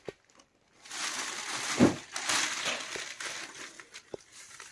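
Cloth rustling and crumpling as a printed muslin dupatta is lifted and unfolded by hand, starting about a second in, with a soft thump near the middle and a light tap near the end.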